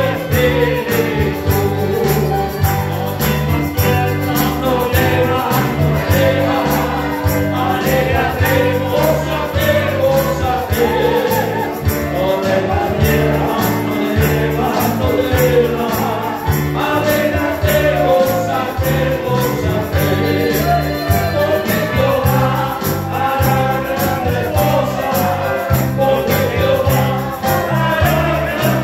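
Live Christian praise music: a group of voices singing a worship song over a band with a repeating bass line and a steady beat.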